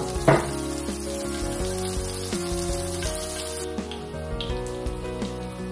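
Hot cooking oil sizzling in a pan, over background music with held notes; two sharp knocks come right at the start, and the sizzling hiss weakens about two-thirds of the way through.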